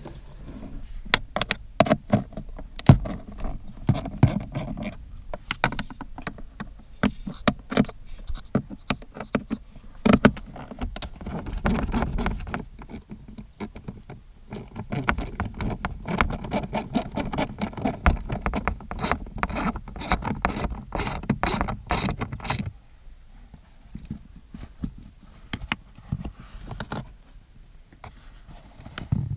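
Handling noises: a stream of clicks, taps and scrapes with rustling between them, busiest for the first twenty-odd seconds and then thinning out to scattered clicks.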